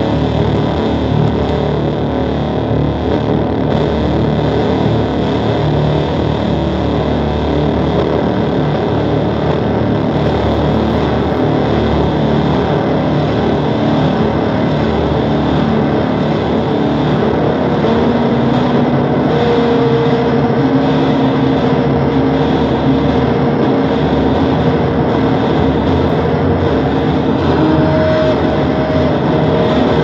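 Harsh noise music: a loud, dense, unbroken wall of noise, heaviest in the low end, with a few held tones surfacing past the middle.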